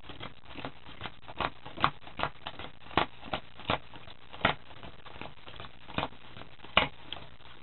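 Playing cards being dealt off a packet onto piles on a cloth mat, a string of irregular soft ticks and taps as each card lands.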